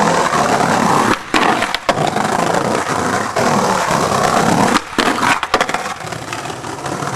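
Skateboard wheels rolling over brick paving: a loud, continuous rough rolling noise, broken by a few short gaps and knocks from the board.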